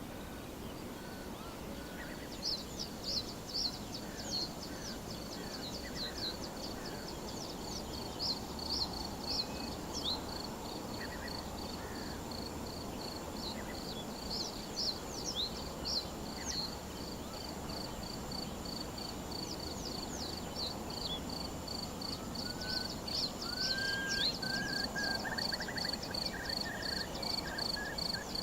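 Meadow ambience at sunrise: scattered songbird chirps over a steady low rumble of distant city noise, with a cricket chirping in an even rhythm that grows clearer in the second half. A bird gives a short whistled call near the end.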